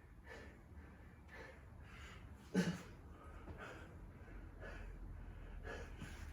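A person breathing hard and rhythmically from exertion, a quick breath about every half second, with one loud thud about halfway through.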